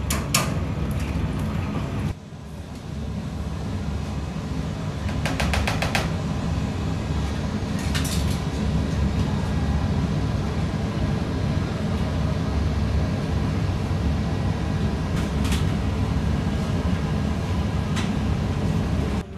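Commercial kitchen noise: a steady low hum of the extraction fans, with scattered clicks and clinks of metal utensils. There is a quick run of clicks about five seconds in.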